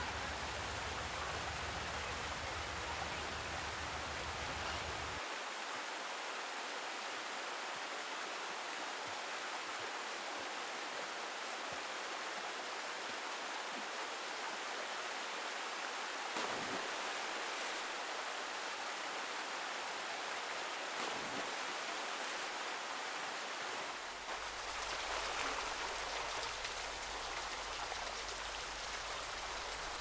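Steady rush of a mountain stream, with small waterfalls cascading into rock pools. The low part of the sound changes abruptly about five seconds in and again near the end.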